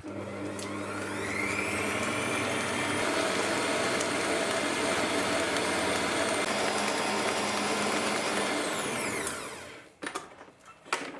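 Kenwood stand mixer motor spinning up, running steadily as its flat beater creams butter, sugar and egg yolks, then winding down with a falling whine about nine seconds in. A few faint knocks follow once it has stopped.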